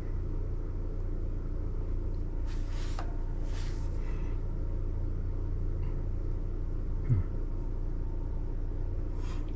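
Steady low background rumble, with two short breathy hisses about two and a half and three and a half seconds in and a brief soft thump about seven seconds in.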